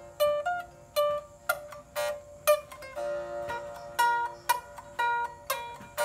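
Sape, the Orang Ulu boat-lute of Borneo, plucked in a slow melody. Its notes fall about twice a second and each rings on over a steady held note.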